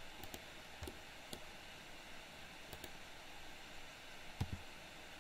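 A handful of faint, short clicks from a computer mouse and keyboard, over a steady low hiss.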